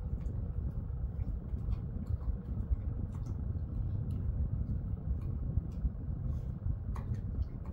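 A Jindo-mix dog chewing and licking a small treat, heard as faint irregular wet clicks over a steady low rumble.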